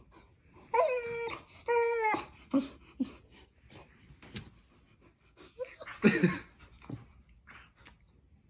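Four-month-old Bernese mountain dog puppy whining twice in short high whimpers, about one and two seconds in, then making wet licking and mouth clicks, with a louder breathy burst about six seconds in.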